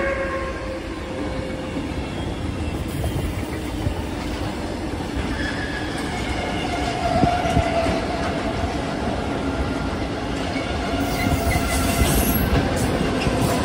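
A freight train of tank wagons rolling past at speed: a steady rumble of wheels on rail with rhythmic clicks over the rail joints. Brief wheel squeals rise out of it around the middle.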